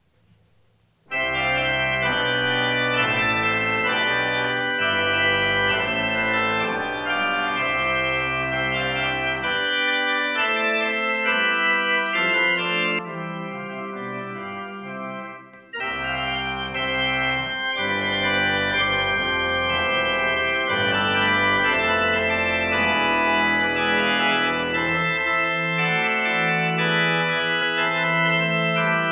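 Organ playing a postlude after the benediction: sustained chords start suddenly about a second in. Midway it drops for a few seconds to a quieter passage without the bass, then the full sound returns.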